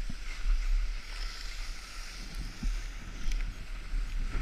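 Wind buffeting the microphone in uneven low rumbles, over a steady hiss of skis sliding on snow while skiing downhill.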